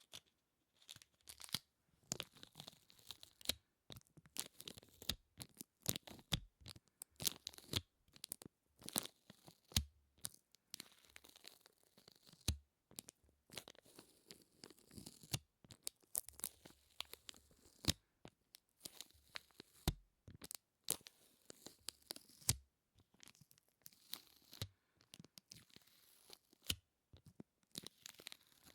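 Close-miked ASMR sticky sounds: a tacky surface pulled apart again and again, giving a dense, irregular run of crackling clicks and peeling pops.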